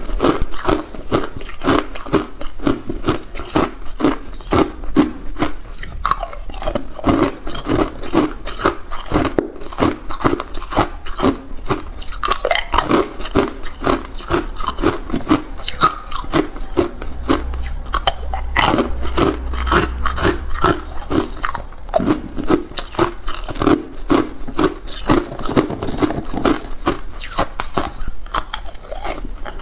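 Hard clear ice being bitten and chewed: a dense, unbroken run of sharp crunches and cracks.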